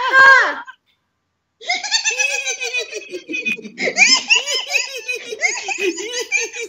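A man and a woman laughing heartily in a deliberate laughter-yoga exercise. A short burst of laughs is followed by about a second of silence, then continuous rapid 'ha-ha' laughter.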